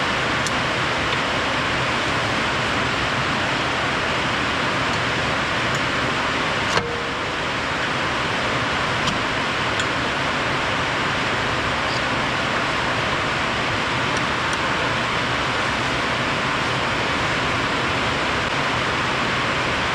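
A steady rushing noise with no clear pitch, broken once by a sharp click about seven seconds in.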